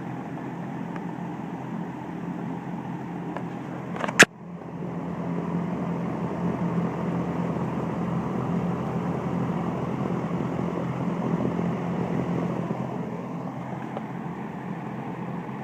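1971 Lakewood S-23 box fan with metal blades running steadily on medium speed, a whooshing rush of air over a low hum. A single sharp click about four seconds in.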